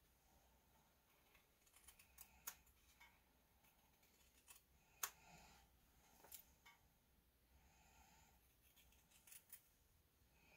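Faint snips of scissors cutting a small circle of cloth: about half a dozen short, separate cuts with quiet pauses between them, the loudest about halfway through.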